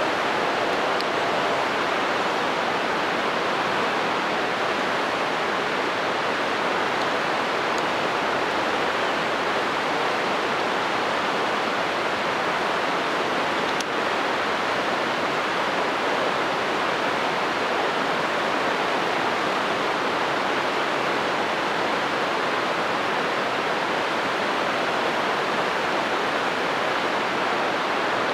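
Steady rush of flowing water, an even hiss that doesn't change.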